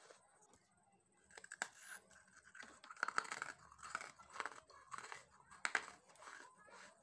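Dry baked clay chunks being bitten and crunched right at a lapel microphone: a run of sharp, crackly crunches that starts about a second in.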